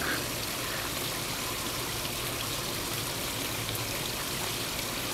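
Steady rush of running water, with a faint low hum underneath.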